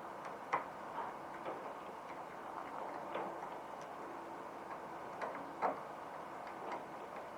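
Light, irregular clicks and taps of parts and hand tools as the levers are screwed on, with two sharper clicks, about half a second in and again past the middle.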